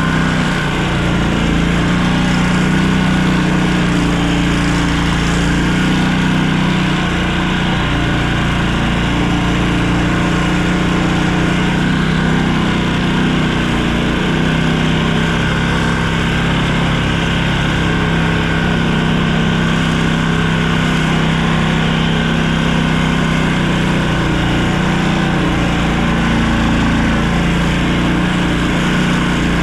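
An engine running steadily at an even pitch and loudness, with no break or change.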